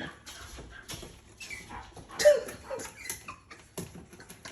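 Yorkshire terrier puppies scrabbling and tapping with their claws as they try to jump up onto a dishwasher, with a few short, high puppy squeaks and whines among the scattered clicks.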